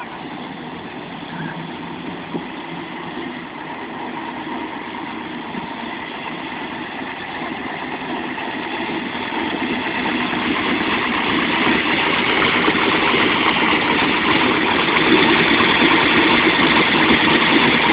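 1954 Chevrolet truck being driven, its engine running steadily and the engine and road noise growing steadily louder.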